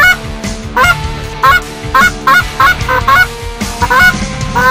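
Handheld goose call blown in a quick series of short, sharp honks and clucks, each breaking abruptly from a low note to a high one, with a longer drawn-out honk near the end: calling to geese working overhead.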